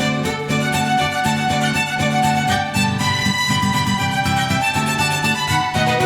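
Background music led by a violin over a steady rhythmic accompaniment.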